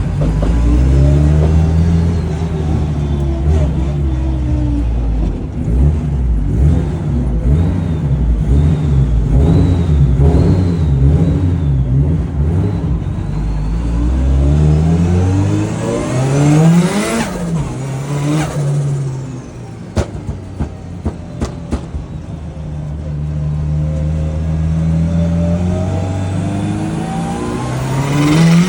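Turbocharged Nissan Silvia's SR20 four-cylinder engine revving up and down under hard driving, with a faint high turbo whistle rising and falling over the engine note. The revs peak and fall away about two-thirds through, then a quieter stretch with a few sharp clicks, and the engine climbs again near the end.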